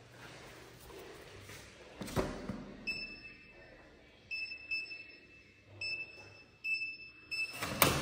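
A thump, then a run of four high electronic beeps, each lasting up to about a second, ending in a loud clunk near the end.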